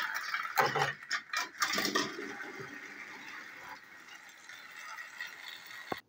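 Battery-powered TrackMaster toy train engine whirring along plastic track, its small motor and gears running steadily, with several clattering knocks in the first two seconds. The whirr fades as the engine runs off and cuts off suddenly near the end.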